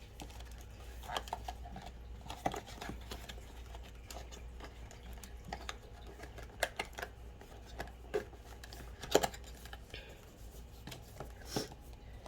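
Scattered light clicks, taps and rustles of small cardboard blind boxes and their packaging being handled and opened, with the loudest click about nine seconds in.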